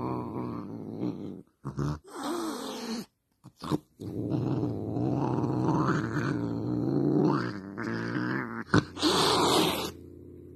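Domestic cat growling in long, low, drawn-out growls that slowly rise and fall in pitch, broken by a couple of short gaps: an angry cat. A short harsh noisy burst sounds near the end.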